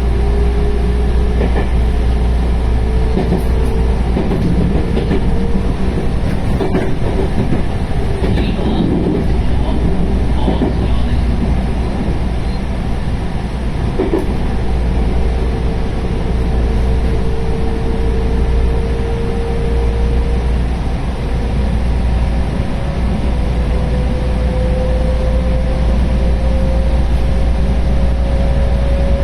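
JR West 221 series electric train running, its DC series-wound traction motors (field-added excitation control) whining in a single tone that rises steadily in pitch as the train gathers speed, over a heavy rolling rumble. A few sharp clicks from the wheels come through in the first half.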